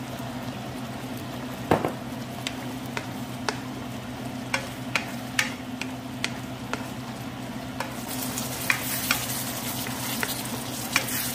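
Pork in coconut milk bubbling and sizzling in a pan as a wooden spatula stirs it, with scattered clicks and taps of the spatula and popping bubbles over a steady low hum. The sizzle grows louder about eight seconds in.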